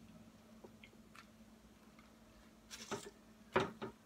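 Quiet chewing of crispy Popeyes fried chicken, with a few faint ticks and then a couple of louder crunches near the end.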